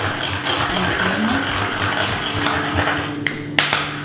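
Saffron threads being ground with a pinch of sugar in a small mortar and pestle: a steady grinding rasp, with a sharp knock near the end.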